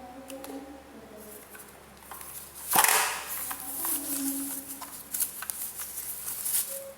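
Packaging being handled during a keyboard unboxing: a loud crackling rustle just under three seconds in, then irregular crinkling and clicks.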